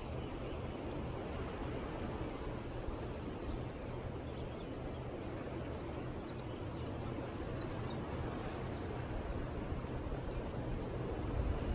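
Outdoor ambience: a steady low rumble with a few faint bird chirps about halfway through.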